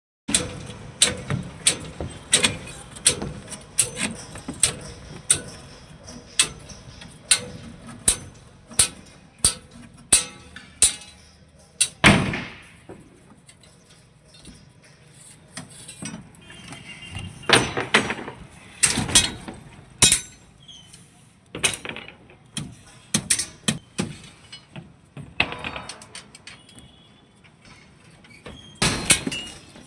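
Hammer blows at a construction site: a steady run of sharp strikes, about two a second, for the first ten seconds or so. After a longer, louder clatter at about twelve seconds, the strikes come scattered, with pauses between groups.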